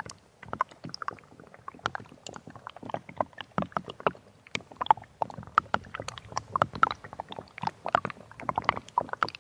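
Snowmelt water dripping and trickling: many small, irregular drips and plinks, close together.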